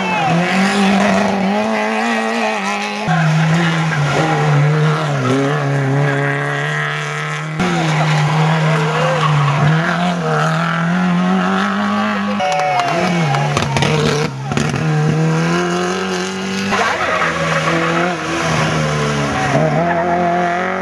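Rally cars' engines revving hard through a tight tarmac hairpin, pitch rising and dropping with gear changes, with tyres squealing. Several cars pass one after another, the sound breaking off abruptly between them.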